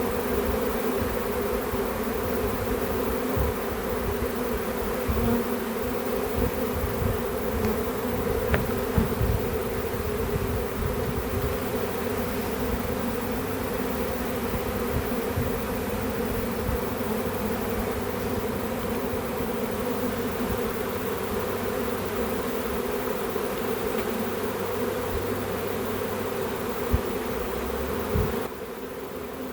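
A swarm of honey bees buzzing: a dense, steady hum of many bees flying around a hive while they are being hived. A few low bumps come through underneath, and the level drops suddenly near the end.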